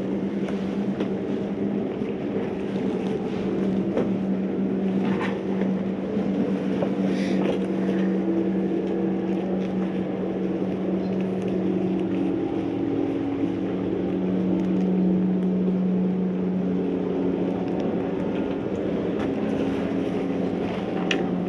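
Boat engine running steadily, its drone shifting slightly in pitch about halfway through, with a few faint clicks over it.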